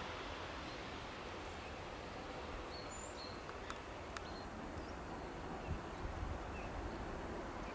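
Steady low outdoor rumble with a few faint, short, high bird chirps, mostly in the first half, and two faint clicks about halfway through.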